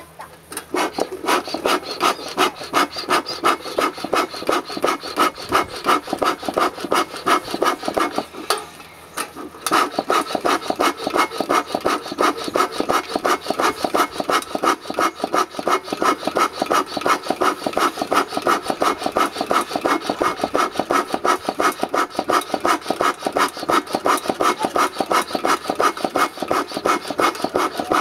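Bee smoker's bellows pumped rapidly, each squeeze a puff of air with a rasping rub, about two or three a second, blowing onto burning coals inside a hollow wooden stump to drive the heat into the middle. The pumping pauses briefly about nine seconds in.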